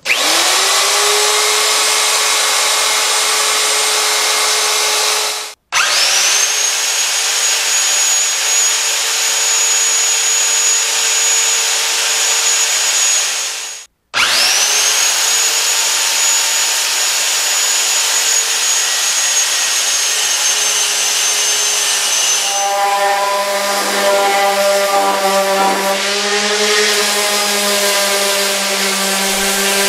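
Electric power tools cutting wood. A plunge router spins up and runs steadily. The sound then cuts out and restarts twice, with a motor spinning up to a high steady whine, the second time a power saw trimming the slab. About three-quarters of the way through, a smaller handheld trim router takes over with a lower, buzzier hum.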